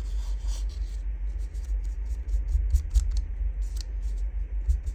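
Foam ink blending tool dabbed and rubbed on the paper edges of a small envelope: soft scratchy rubbing with many short light taps, over a steady low rumble from the work table.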